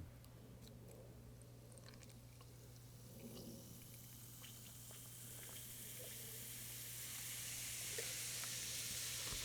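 Fizzing-lava toy powder reacting with water, a faint high fizzing hiss that grows steadily louder from a few seconds in, with a few light clicks of the plastic container.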